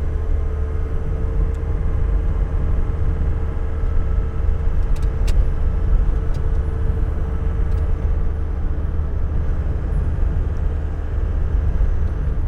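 Camper van driving along a country lane: steady engine drone and road rumble, with a steady hum in it that fades out about eight seconds in.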